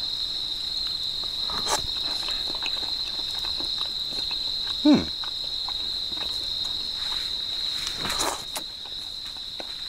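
Crickets chirring in a steady, high, even drone. Over it come a few short sounds of someone eating hot soup and noodles, and one brief falling squeak about five seconds in, the loudest moment.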